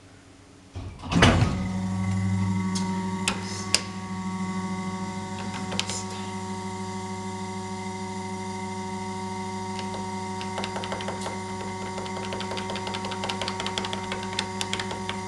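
A 1999 KONE hydraulic elevator setting off and travelling: a sudden jolt about a second in, then a steady electric hum with several fixed tones while the car moves, with scattered small ticks and rattles from the car in the second half.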